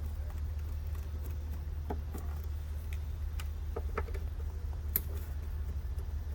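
A few scattered small clicks and taps from a screwdriver working the cover screws out of an Air Techniques AT2000XR processor, over a steady low hum.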